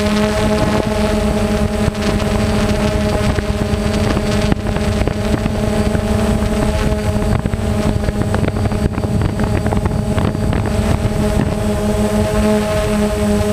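Multirotor drone's electric motors and propellers running steadily, heard from its onboard camera as a hum of several steady tones. Wind buffets the microphone in the middle.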